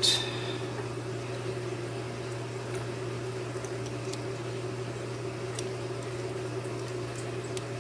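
A steady low hum in the room, with a few faint light clicks as a hobby servo is handled and fitted into a metal bracket.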